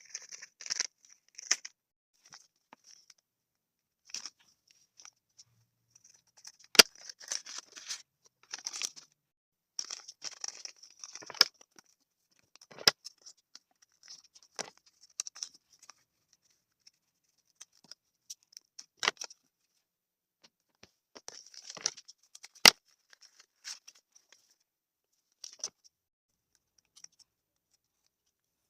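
Handmade paper blind bag being opened by hand: paper crinkling and tearing in short, scattered bursts, with about five sharp clicks spread through it.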